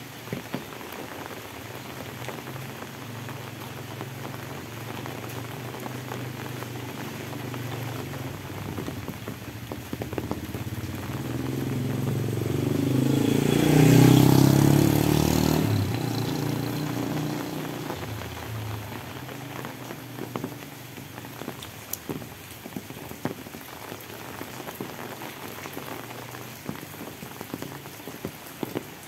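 Steady rain falling on a paved lane and leafy plants. About halfway through, a motor vehicle passes close on the wet road: its engine and tyre hiss swell to a loud peak and then fade away.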